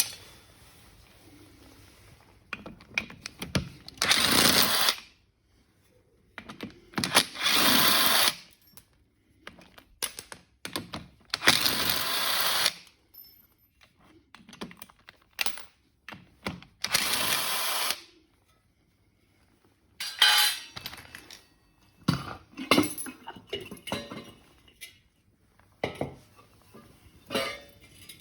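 A power tool run in four short bursts of about a second each, with knocks and clinks of metal parts in between.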